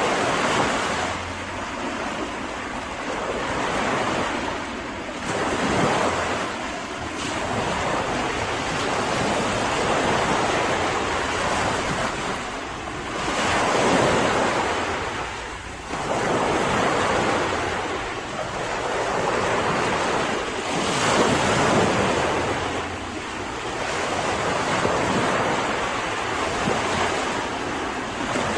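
Sea waves breaking and washing on a beach, the surf rising and falling in repeated surges every few seconds, with some wind noise on the microphone.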